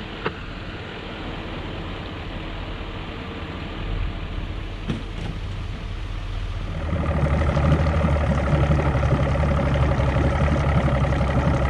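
A pickup truck's engine running a way off as it pulls a boat trailer up the ramp; about seven seconds in, a louder, steady outboard motor idling close by takes over.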